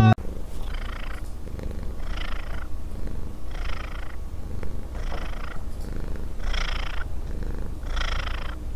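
Domestic cat purring: a steady low rumble, with a breathy swell about every second and a half as it breathes in and out.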